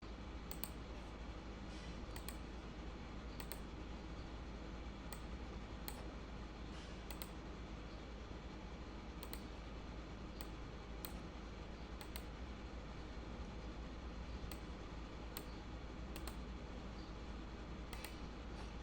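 Sharp clicks at irregular intervals, roughly one a second, over a steady low hum and hiss.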